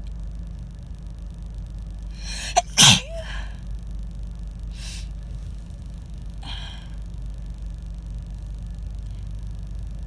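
A woman sneezes once, loud and harsh, just under three seconds in: a short indrawn breath, then the explosive sneeze, then a couple of faint breaths. It is a harsh sneeze from a cold that is moving to her chest. A steady low hum runs underneath.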